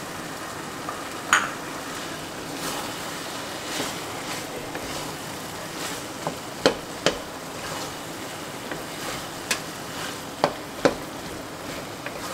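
Spatula stirring chicken keema and peas in a kadai, mixing in freshly added coriander leaves, over a steady sizzle of frying. A few sharp knocks of the spatula against the pan stand out: one about a second in, two close together midway, and more near the end.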